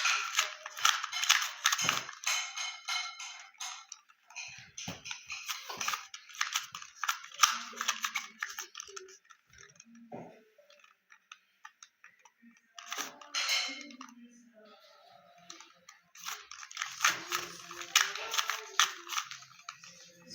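2x2 Rubik's cube being turned by hand: bursts of quick plastic clicking and rattling as the layers are twisted, with short pauses between the bursts.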